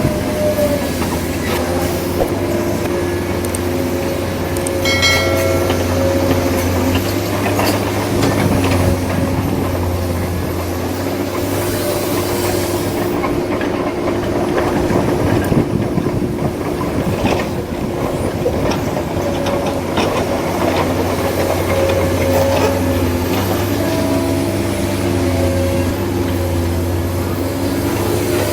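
Steady mechanical whir of radio-controlled model machines, their small electric motors and gearing running, with a short high-pitched tone about five seconds in.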